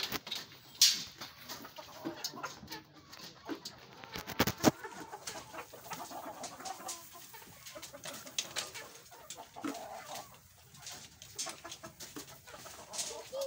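Chickens clucking, with scattered sharp knocks and clicks, the loudest about four and a half seconds in.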